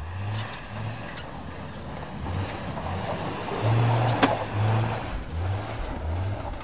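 Hummer H3 climbing a steep bank: the engine revs in repeated bursts of throttle while the tyres spin and throw up snow and dirt. There is one sharp knock a little past the middle.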